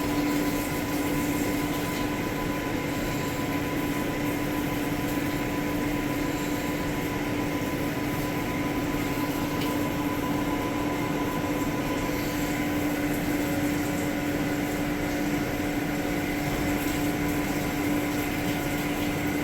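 CNC machine running with its coolant pump on, washing chips out of the enclosure: a steady hum under an even hiss of spray, with little flow.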